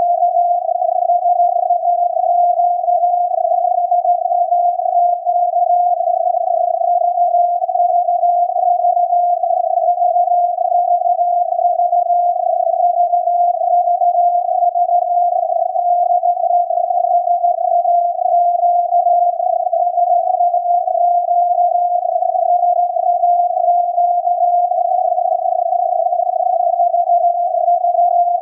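SAQ's Alexanderson alternator transmission on 17.2 kHz, received by software-defined radio and heard as a steady beat-note tone near 700 Hz. The tone wavers slightly in pitch within a narrow band of radio hiss.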